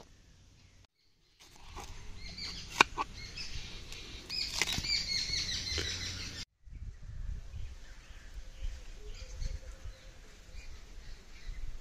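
Ripe watermelon being cut and its flesh scraped from the rind: crisp, wet crunching and scraping, with a single sharp click about three seconds in. The sound comes in short takes broken by two brief silences.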